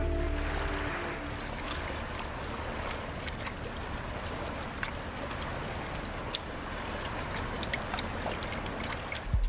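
Choppy sea water sloshing and splashing at the surface, with many small sharp splashes and ticks scattered through it.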